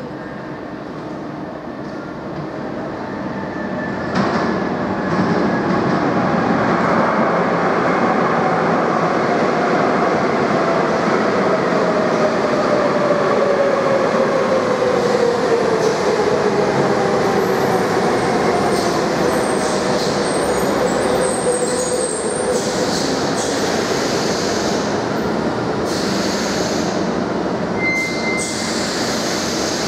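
Madrid Metro Serie 5000 underground train running into the station and braking to a stop, growing louder as it arrives, with a whine that falls in pitch as it slows.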